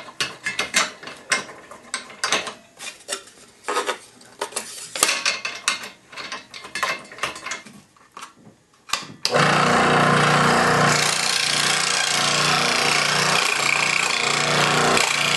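Clicks, knocks and rattles as a scroll saw blade is threaded through a drilled hole in a wooden panel and clamped in its holder. About nine seconds in, the scroll saw starts suddenly and runs steadily, its reciprocating blade cutting through the wood.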